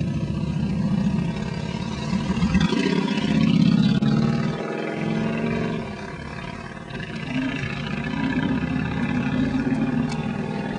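American bison bull bellowing: a run of deep, growling roars, each swelling and fading over a second or two.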